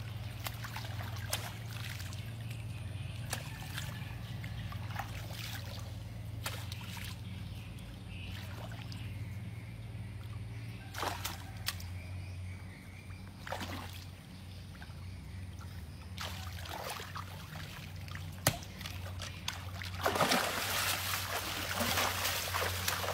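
Water splashing and sloshing in short, scattered bursts that become louder and busier near the end, over a steady low hum.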